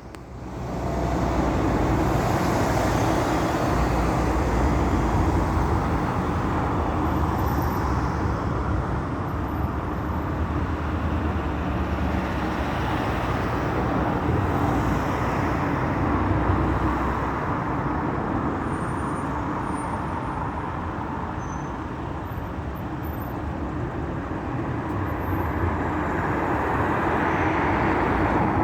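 River in flood, fast water rushing in a steady, loud wash of noise.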